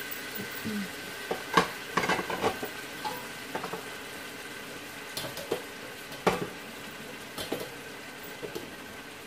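Mutton frying in a large aluminium pot with a steady sizzle. Over it come scattered sharp clicks and knocks of crockery and utensils being handled; the loudest is about a second and a half in and another just after six seconds.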